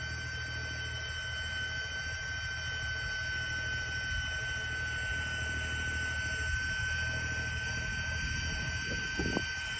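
EGO 56-volt battery-powered two-stage snow blower running under load, its electric motor giving a steady high whine over a low hum as the auger and impeller chew through fresh snow and throw it out the chute.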